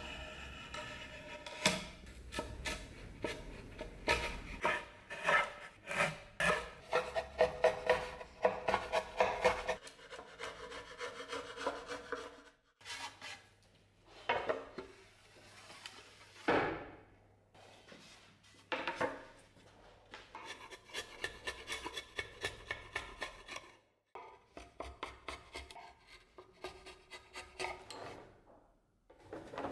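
A carving knife scraping and cutting a groove into a pine board in many short, quick strokes, with a pause in the middle.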